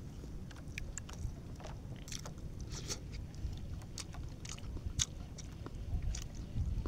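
Chewing raw fish close to the microphone: scattered short, wet mouth clicks, irregularly spaced, over a steady low rumble.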